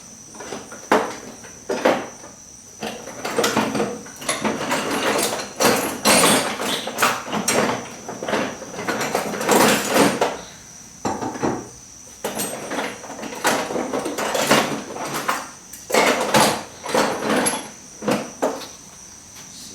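Metal sockets and hand tools clinking, knocking and rattling in irregular bursts as they are sorted through by hand to find a large socket.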